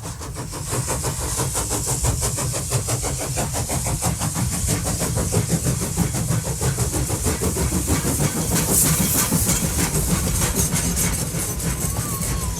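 A train running, heard as a rapid, even beat over a steady hiss. It fades in over the first second.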